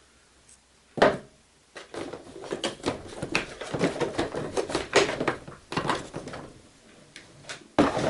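A large screwdriver prying and scraping at the sealed plastic case seam of a keyboard organ. A sharp knock comes about a second in, then a run of scraping and clicking for several seconds, and another knock near the end.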